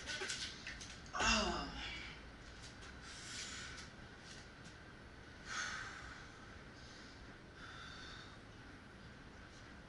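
A man breathing hard while lifting dumbbells: forceful puffs of breath about every two seconds. The loudest, about a second in, is a voiced grunt that falls in pitch.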